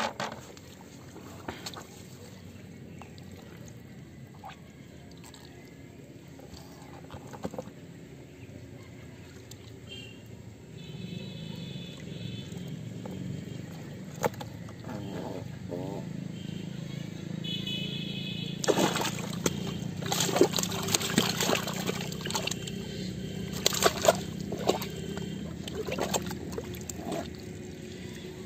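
Fish splashing in shallow muddy water and slapping against a plastic bucket as they are lifted out of a pit trap by hand. The splashes and slaps come thick and loud in a run from about two-thirds of the way in.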